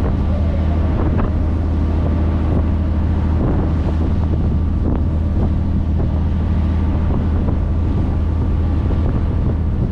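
A motorboat's engine running steadily under way, a constant low drone, with wind buffeting the microphone and the wake rushing and splashing alongside.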